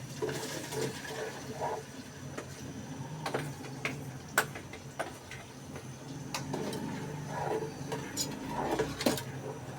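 Kitchen utensils and dishes being handled: scattered clinks and knocks, the sharpest about four and a half seconds in and again near the end, over a steady low hum.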